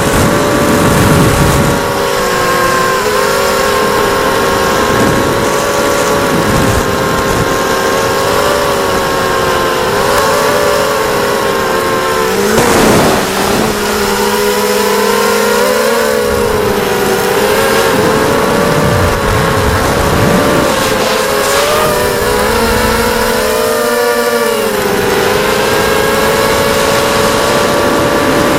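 ZMR250 FPV racing quadcopter's brushless motors whining, a cluster of close tones wavering up and down with the throttle. A short burst of rushing noise comes about thirteen seconds in.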